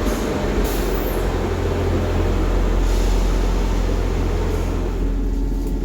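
Class 158 diesel multiple unit pulling away, its underfloor diesel engine under power: a steady low rumble, with a faint higher tone coming in near the end.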